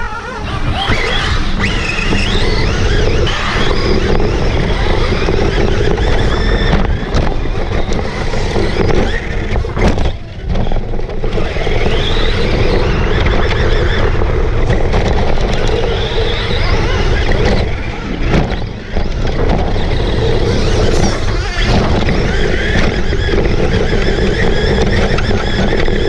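Onboard sound of a radio-controlled short-course truck racing on a dirt track: its motor whines up and down in pitch with the throttle over a steady rumble of tyres, dirt and body rattle. The noise drops away briefly twice, near the middle and about three quarters of the way through.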